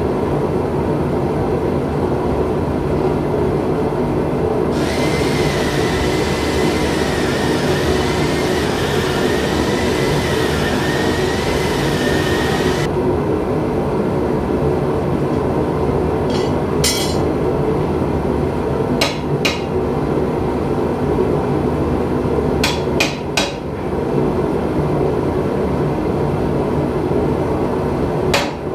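Steady roar of a forge running, with a hiss and a wavering high whistle for several seconds early on. Then a few scattered sharp metal strikes, like a hammer or tongs on steel, in ones and pairs and a quick cluster of three.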